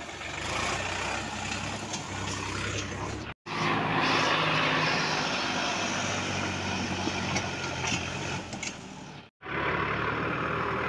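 Sonalika DI 42 RX tractor's diesel engine running under heavy load as it tries to pull a loaded trolley out of the mud where it is stuck. The sound cuts out abruptly for a moment twice, about a third of the way in and near the end.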